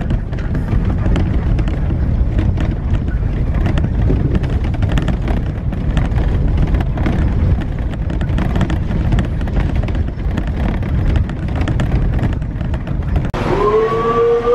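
Passenger bus on the move, heard from inside: a steady, loud rumble of engine and road noise with many small rattles and knocks. Near the end it cuts to a quieter background and a short rising whine.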